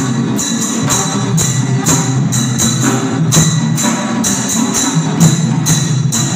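Live folk percussion music: a group of large hand drums with jangling metal percussion, beating a steady rhythm of about two strokes a second.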